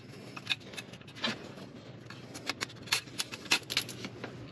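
Scattered light metallic clicks and scrapes as a thin metal exhaust gasket is worked by hand off the turbocharger outlet studs.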